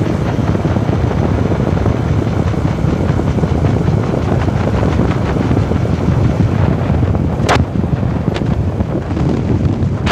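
Heavy wind buffeting on the microphone of a phone held on a moving motorcycle, with the motorcycle's road and engine noise beneath it. A sharp click about three-quarters of the way in.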